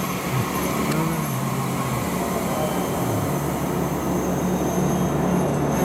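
JR Central 315 series electric train moving past along the station platform: a steady rumble of wheels on rail with low, wavering motor tones.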